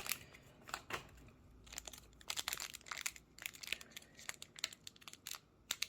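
Foil booster-pack wrapper of a Pokémon card pack crinkling and crackling in short, scattered bursts as it is handled and pulled at to tear it open.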